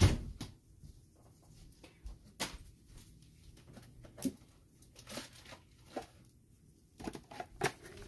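Trading cards and pack wrappers being handled: scattered clicks, taps and brief rustles. The sharpest knock comes right at the start, with a few more clicks near the end.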